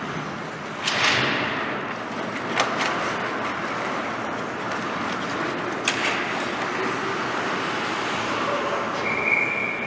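Hockey skates scraping on the ice, with a hissing scrape about a second in that fades away, and a few sharp cracks of sticks and pucks, twice close together near the third second and once near the sixth.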